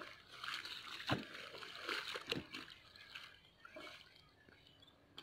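Spade cutting into wet mud and slapping clods down at the water's edge of a flooded field bed: a few wet thuds and splashes in the first half, the loudest about a second in, then quieter. The earth is being banked up to close off the flooded bed and turn the irrigation water to the next one.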